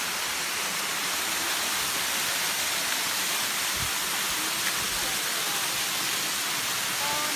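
Steady rush and hiss of a waterfall cascading down a rock face.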